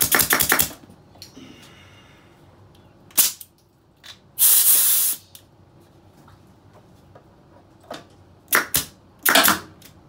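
Pneumatic staple gun on an air hose that is not firing properly: a quick run of clicks at the start, a single sharp shot about three seconds in, a hiss of compressed air lasting about a second, then a few more sharp shots near the end.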